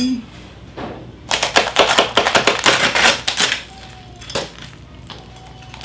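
Crispy roasted skin of a whole lechon (spit-roasted pig) crackling as it is cut with a knife and peeled away in one long strip. A dense run of rapid crackles starts about a second and a half in and lasts about two seconds, followed by a few single snaps.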